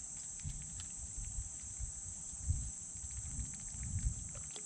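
Insects droning steadily at a high pitch, over a low uneven rumble and a few faint clicks.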